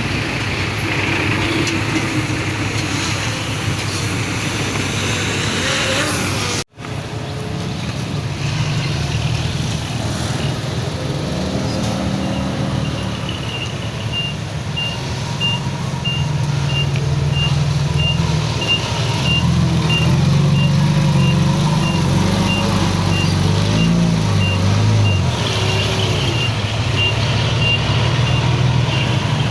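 Diesel engines of earth-moving machinery, a bulldozer and a dump truck, running and shifting in pitch under load. From about halfway through, a reversing alarm beeps steadily as a machine backs up. The sound cuts out suddenly for a moment about a third of the way in.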